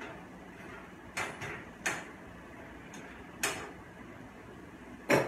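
A utensil clinking and knocking against a skillet as chicken pieces are turned: about six sharp strikes, the loudest near the end, over a steady low hiss.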